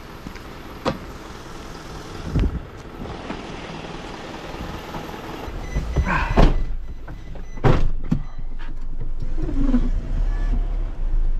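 Refuse truck's diesel engine running, with knocks and thuds as the driver climbs into the cab and the cab door shuts, the two loudest about six and a half and eight seconds in. The low engine rumble grows louder from about halfway through.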